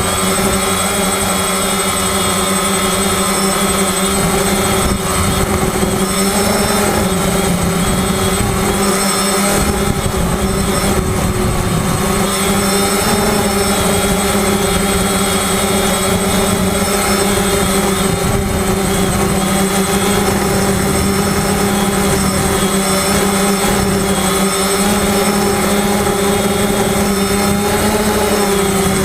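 FPV drone's electric motors and propellers running at steady throttle: a constant buzzing whine, its pitch shifting slightly near the end.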